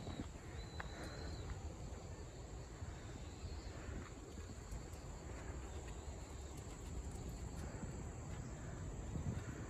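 Crickets chirring in a steady high drone over a low outdoor rumble, with a short high chirp about a second in.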